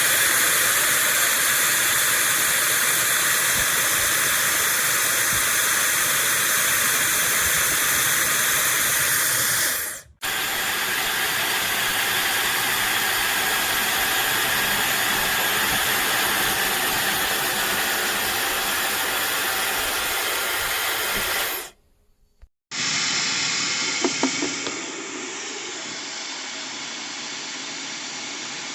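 High-speed hair dryer blowing: a loud steady hiss of rushing air. It cuts out briefly about ten seconds in and again a little after twenty seconds, then runs on quieter and duller.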